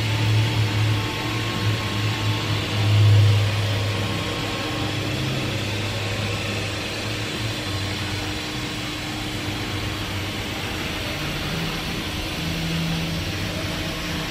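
Steady hum and rush of running machinery, swelling briefly about three seconds in.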